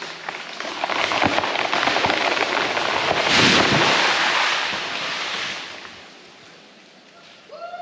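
An oak tree coming down: a dense crackle of wood and branches snapping and breaking, building to a crash about three and a half seconds in and dying away by about six seconds. Near the end a short, flat-pitched call starts.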